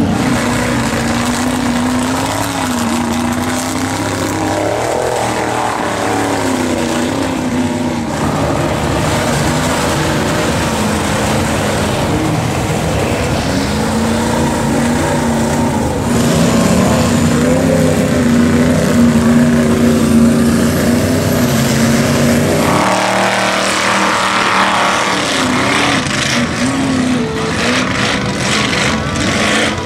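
Engine of a stretched square-body Chevy mega mud truck revving up and down as it drives through mud, its pitch rising and falling. The sound changes abruptly about 23 seconds in.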